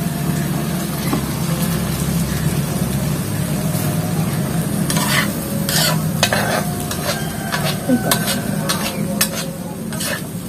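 Ground chili frying in hot oil, sizzling steadily, as a spatula stirs and scrapes it in the pan. From about halfway in, the spatula knocks sharply against the pan several times.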